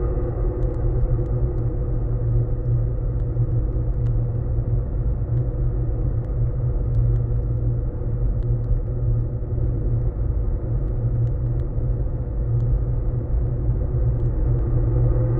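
Humber Bridge's steel footbridge handrail vibrating in high wind, picked up by a contact microphone: a steady deep rumble with several held humming tones above it, and a few faint ticks.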